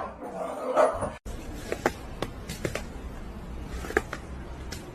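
A dog barking in the first second; after a sudden cut, a low steady hum with scattered clicks and knocks.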